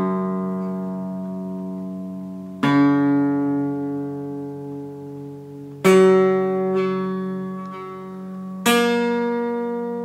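Acoustic guitar tuned to open G: a strummed chord ringing out, then strummed again three times about every three seconds, each time left to ring and fade.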